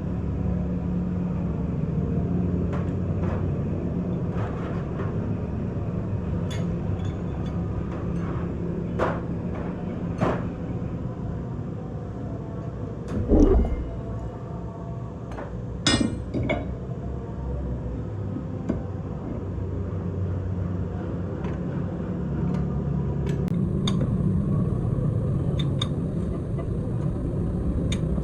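An engine or workshop machine running with a steady low hum, with scattered metallic clinks and taps from hand work. Two louder knocks come about halfway through.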